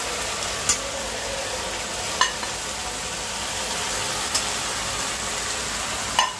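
Onion masala with ginger-garlic-chilli paste sizzling in hot oil in a steel kadai as it is stirred, with a metal spoon clinking against the pan about four times.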